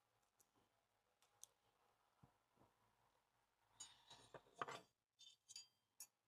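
Near silence, broken by faint clicks and a short spell of rustling and clicking about four seconds in, then a few more clicks: small parts being handled during assembly.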